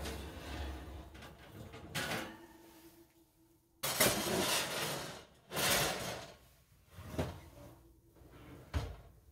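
Oven door and pizza pan being handled: a couple of sudden scraping, knocking bursts in the middle, then a sharp low thump near the end.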